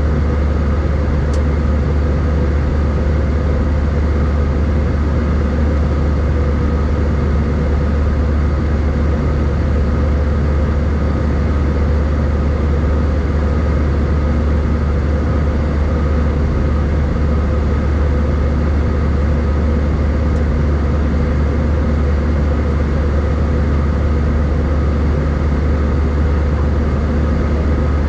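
Steady cabin noise of an Airbus A319 in flight, heard from a seat over the wing: a deep, even drone of engines and airflow with a few faint steady tones above it, unchanging throughout.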